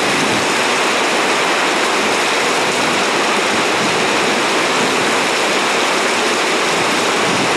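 Heavy rain pouring down in sheets, a steady, loud rushing hiss.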